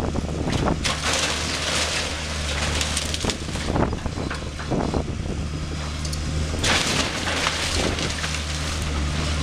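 Cat 325 hydraulic excavator's diesel engine running steadily while its bucket crushes and pulls apart the timber frame of a wooden house. Repeated cracking and crashing of splintering wood and falling debris, loudest about a second in and again near seven seconds.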